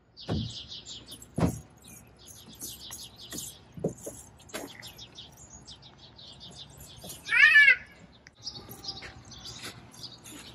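Small birds chirping repeatedly, with a few dull knocks in the first five seconds and one brief, loud, high-pitched cry about seven seconds in.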